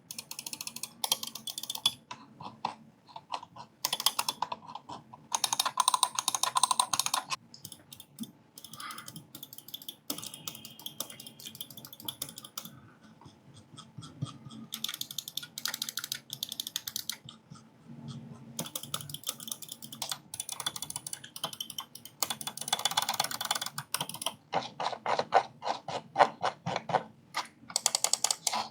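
Buttons of Akko wireless gaming mice clicked in quick runs, a dense series of light, sharp clicks in bursts of a second or more with short pauses between.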